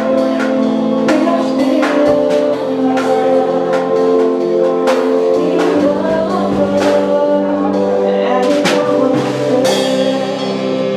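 Band music: a drum kit beat under long held keyboard chords.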